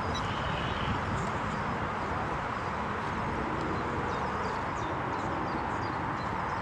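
Steady outdoor background noise, an even hiss over a low rumble, with faint high bird chirps through it.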